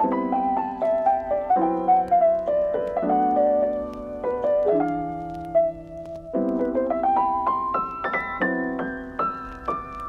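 Background piano music: held chords that change every second or so, with a melody line above them.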